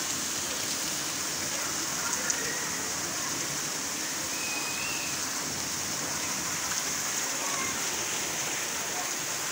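Rain falling and splashing on hard surfaces, a steady even hiss, with one sharp click about two seconds in.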